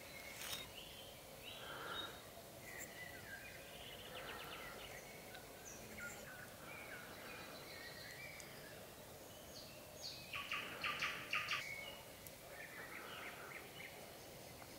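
Scattered birdsong and chirps from several birds, faint, with a louder quick run of repeated notes about ten seconds in.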